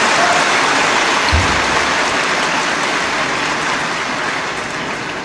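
Audience applauding in a large hall, a dense, steady clapping that slowly dies down, with a brief low thump about a second and a half in.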